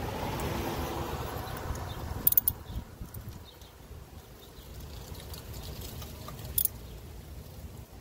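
Wind rumbling on the microphone, with a gust that dies down after about two and a half seconds, and two short sharp clicks, about two seconds in and again past six seconds.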